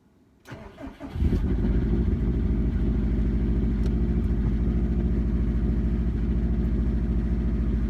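A Subaru WRX's built 2.6 L EJ25-based flat-four (STi hybrid, forged internals) cold-starting: the starter cranks about half a second in, the engine catches just over a second in, then settles into a steady idle. Cold, it shows a good amount of piston slap.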